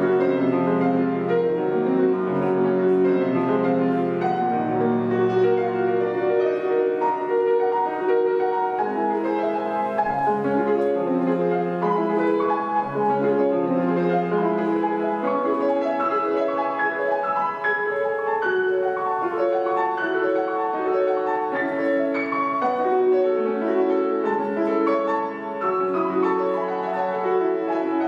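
Solo piano playing a classical piece, a continuous flowing stream of notes across low and middle registers.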